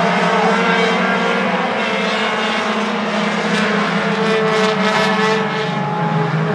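Four-cylinder short-track race cars running at speed around the oval, their engines droning steadily as they lap.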